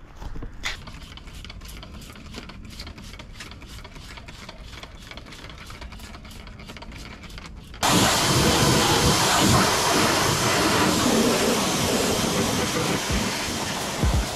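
Pressure washer spraying the underside and wheel well of a car: a loud, steady hiss of the water jet over the pump motor, starting suddenly about eight seconds in. Before it there is only faint, rapid ticking.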